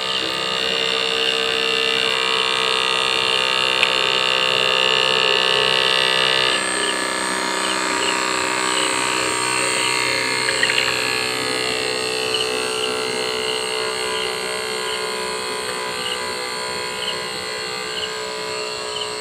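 Small brushed DC motor spinning a plastic air propeller, a steady buzzing whine. Its tone changes abruptly about six and a half seconds in.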